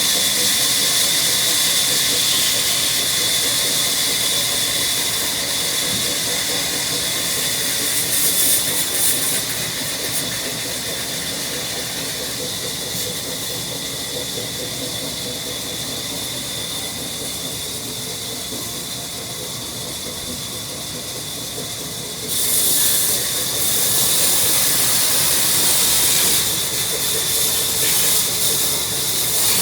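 Woodworking machine cutting wood, a steady high-pitched hiss with a whining tone that grows louder about two-thirds of the way through.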